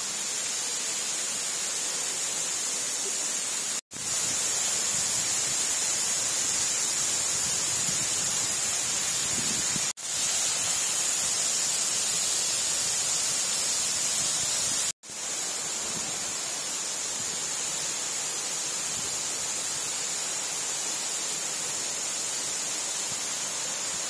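Steady rushing of an indoor waterfall tumbling over rocks into a pool, broken by three brief gaps about 4, 10 and 15 seconds in.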